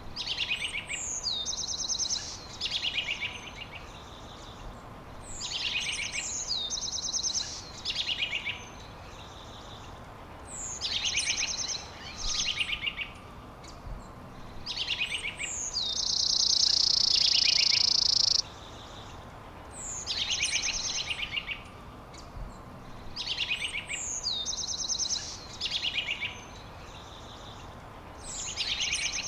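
A songbird singing the same phrase over and over, about every four to five seconds: each phrase is a quick gliding note followed by a rapid high trill. About sixteen seconds in, a loud steady buzzing hiss lasts about two and a half seconds and is the loudest sound here.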